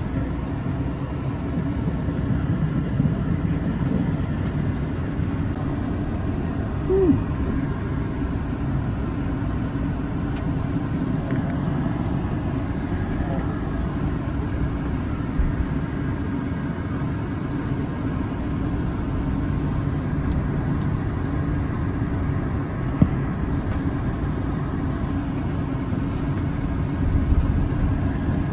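Steady low rumble of a vehicle driving, heard from inside it: engine and road noise with no change in pace.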